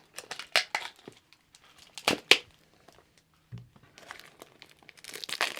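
Plastic shrink wrap being torn and pulled off a small product box: a few sharp crinkling rips, the loudest about two seconds in, then steadier crinkling near the end.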